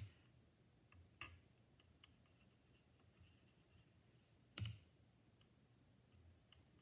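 A paintbrush knocking against a plastic watercolour palette and water cup while picking up green paint. There are three sharp clicks: two about a second apart, then a third about three seconds later.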